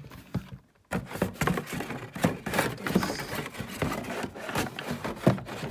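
Leather boot being handled and turned over: a knock at the start, then from about a second in, irregular rubbing, scraping and light knocks.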